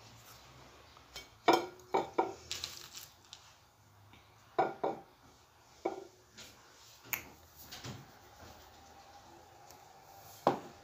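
A scattering of sharp knocks and clinks as a ceramic plate and a plastic sugar shaker are handled on a tabletop while banana spring rolls (turon) are wrapped by hand.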